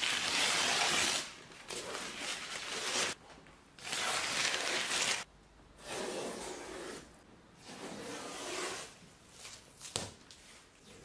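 Kraft masking paper being crumpled and pulled off a car bumper, then masking tape peeling away, in a series of separate rustling, tearing pulls, the first the loudest, with a sharp click near the end.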